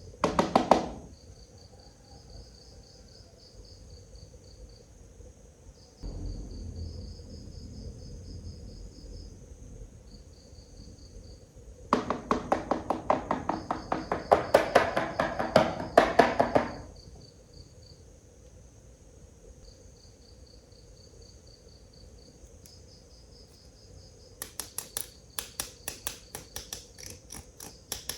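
Crickets chirping in short repeated trills throughout. Runs of rapid clicking come at the start, again near the end, and in the middle as a loud buzzy burst lasting about five seconds, which is the loudest part.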